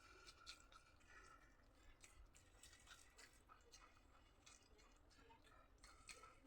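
Faint chewing and eating mouth sounds: soft, wet little clicks scattered irregularly as food is chewed.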